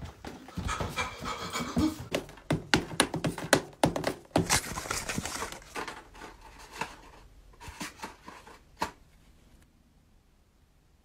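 A person panting and breathing hard while hurrying off, with scattered knocks and bumps. It dies away about halfway through, with one last knock near the end.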